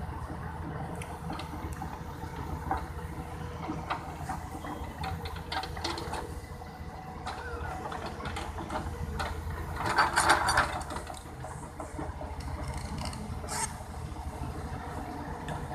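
An excavator running steadily, with scattered clicks and a louder clatter about ten seconds in.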